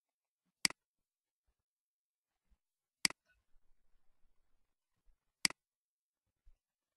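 Three sharp computer mouse clicks, about two and a half seconds apart, each a quick double snap of press and release. Faint soft ticking comes between the second and third.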